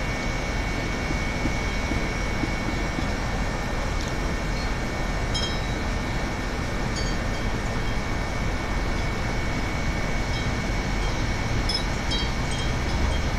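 Steady rushing of wind, with a few faint, high tinkling notes about five and seven seconds in and again near the end.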